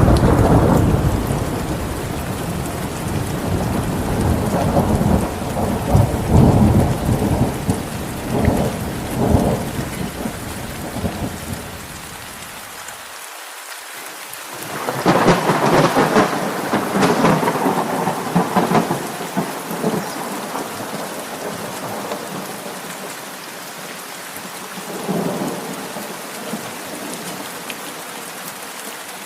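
Steady rain with rolling thunder: a long, crackling roll over the first twelve seconds or so, another loud roll about fifteen seconds in, and a fainter rumble near the end.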